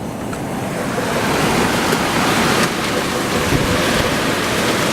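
Heavy rain driven sideways by strong wind, a steady rushing that builds over the first second.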